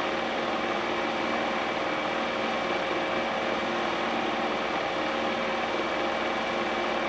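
A steady mechanical whirring hum with a few faint constant tones in it, a machine running in the room.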